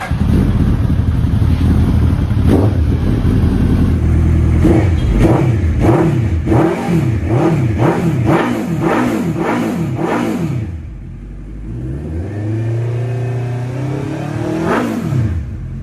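Suzuki Hayabusa inline-four with a new aftermarket exhaust, just started and running high at first. About five seconds in it is revved in a rapid string of about ten quick throttle blips, each rising and falling. It then settles back to idle, with one longer rev rising and falling near the end.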